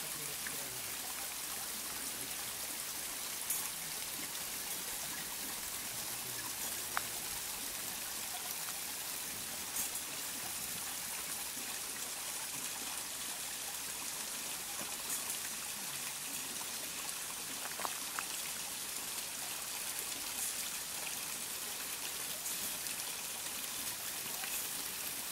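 Steady running and trickling water of a small stream feeding miniature water mills through little pipes and troughs, with a few light clicks scattered through.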